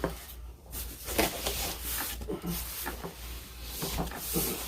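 Cardboard scraping and rubbing as an inner box is worked out of a large shipping carton, in irregular shuffles over a steady low hum.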